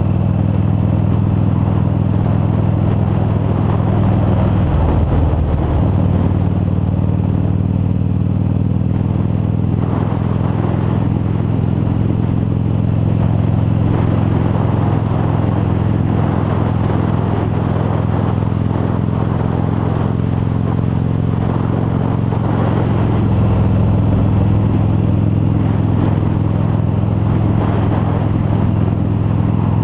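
Harley-Davidson V-Rod Muscle's 1250 cc liquid-cooled V-twin running steadily at cruising speed, heard from the rider's helmet. The engine note breaks and changes briefly about five seconds in, then settles back to a steady drone.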